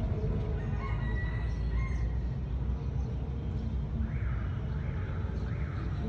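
A rooster crowing once, about a second in, over a steady low rumble.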